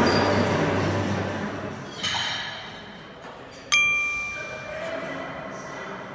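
Background noise fades over the first two seconds, then metal is struck twice and rings: a lighter clank about two seconds in, and a sharp, loud clang a little later that rings on as a clear, bell-like tone and slowly dies away.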